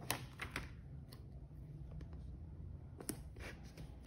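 A handful of faint, brief crinkles and ticks from a paper sticker sheet being handled as a round label sticker is peeled off and pressed onto a cardboard watch box, over a low steady hum.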